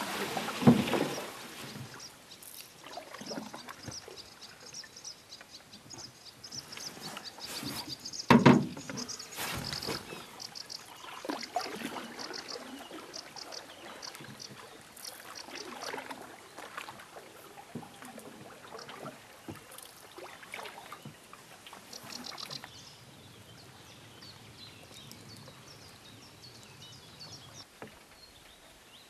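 Canoe paddle strokes through calm water, with splashing and dripping, and two louder bumps near the start and about eight seconds in.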